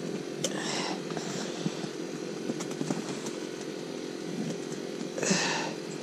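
A small engine-like motor drones steadily. Two short bursts of hiss or rustle cut in, one about half a second in and a louder one near the end.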